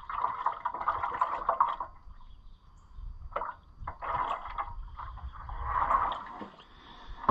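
Antifreeze coolant glugging and splashing as it is poured from its container into a Cummins diesel pickup's cooling system. It comes in two spells with a short pause about two seconds in, and a light knock comes just before the second spell.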